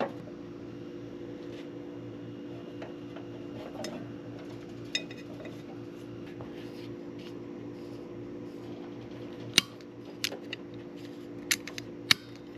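Small metal tools clicking and clinking while the battery cable is worked on, a few sharp clicks bunched in the last few seconds, over a steady low hum.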